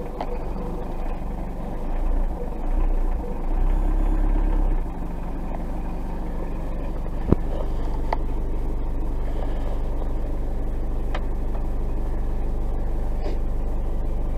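1995 Citroën C15's diesel engine running just after a cold start at −14 °C. It is uneven and louder for a few seconds, then settles into a steady idle. A single sharp click comes about seven seconds in.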